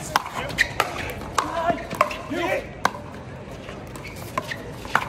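Pickleball rally: paddles striking the hard plastic ball in a fast volley exchange, about six sharp pops spaced roughly half a second to a second apart.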